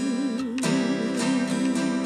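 Acoustic guitar strummed in an even rhythm of about two strokes a second, under a held wordless sung note with a wide vibrato that stops about a second and a half in.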